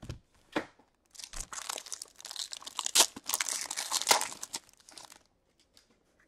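Foil wrapper of a hockey card pack crinkling and tearing as it is ripped open by hand, with one sharp rip about three seconds in, then a few faint ticks as the cards are handled.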